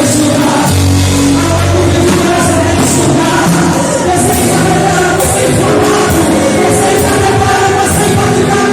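Live Christian worship music: singing over a band, with a high percussion hit about once a second.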